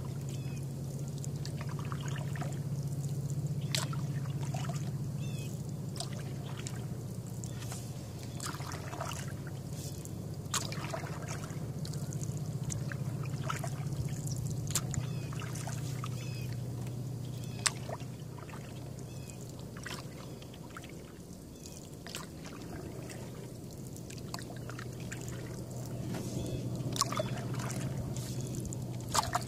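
Canoe paddle strokes in calm water, with water trickling and dripping off the blade and scattered small sharp clicks, over a steady low hum.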